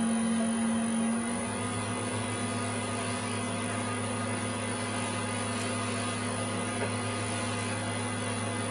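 Pentair 1.5 hp, 220 V spa pump running steadily on a variable speed controller while being slowed from about 3320 to 3000 RPM, its hum easing slightly about a second in.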